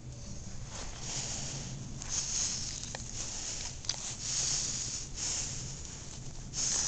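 A dog sniffing and breathing right at the microphone, in short hissy bursts every second or so.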